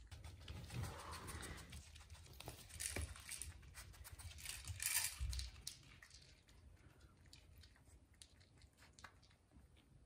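A Bichon puppy nosing a plastic egg-shaped treat-dispensing tumbler toy across a laminate floor: the toy knocks and wobbles and the kibble inside it rattles, busiest in the first six seconds. After that come lighter, scattered clicks as the kibble that has dropped out is picked up and eaten.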